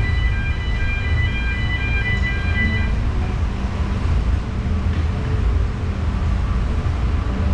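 Steady low mechanical rumble of roller coaster station machinery, with a repeating pattern of high electronic beeps over the first three seconds that then stops.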